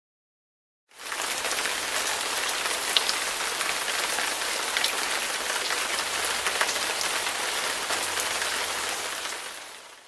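Steady rain-like water noise: a dense hiss with many small ticks, starting about a second in and fading out near the end.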